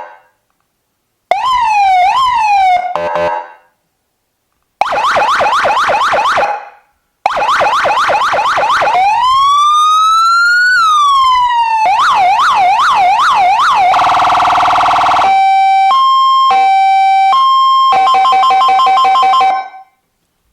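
AS580 electronic siren sounding through its speaker and stepping through a series of tones with short pauses between them. First come quick up-and-down yelps. Then a slow rising and falling wail, more yelps, and a buzzing horn tone. It ends with a two-note hi-lo alternation and a fast pulsing tone.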